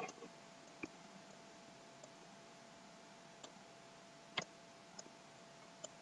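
Near silence broken by a few sharp computer-mouse clicks, the loudest about four and a half seconds in, over a faint steady hum.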